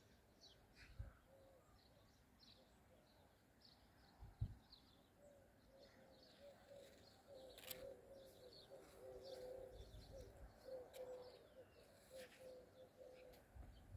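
Faint birdsong: small birds chirping in short high notes over a dove cooing in a low, quickly repeated phrase. Two soft thumps about a second and four seconds in.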